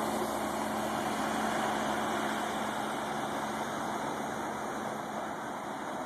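Outboard motor of a small launch running as it passes and moves off, a steady engine drone that eases down slowly toward the end.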